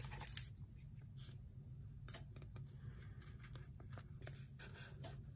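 Fabric scissors cutting faintly through folded fabric stiffened with iron-on interfacing, a few scattered snips over a low steady hum.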